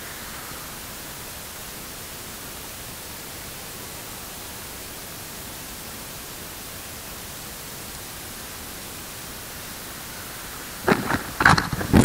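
Steady, even hiss of a noise test signal. About a second before the end it gives way to a run of loud, sharp, irregular knocks and clatter.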